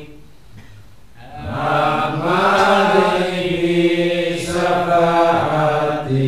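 A man chanting solo into a microphone in long, drawn-out melodic notes. The voice comes in about a second and a half in and breaks off briefly near the end.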